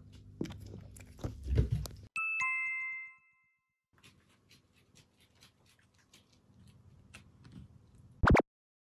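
Domestic cats crunching dry kibble: close and crisp for the first two seconds, fainter and steadier later. About two seconds in, a two-note ding-dong chime falls from a higher tone to a lower one and rings for about a second. A brief loud thump comes near the end.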